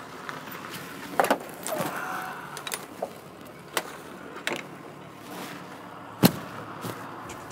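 A backpack being shoved onto a bus's overhead luggage rack and a person sitting down: a string of scattered knocks and clunks with rustling, the loudest thump about six seconds in.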